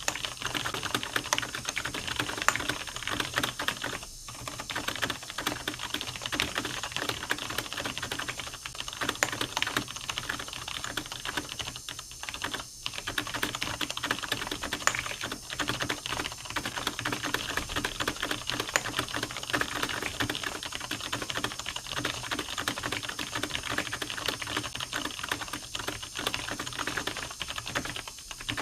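Fast, continuous typing on a computer keyboard: a dense run of keystrokes, with brief pauses about four seconds in and again around twelve seconds in.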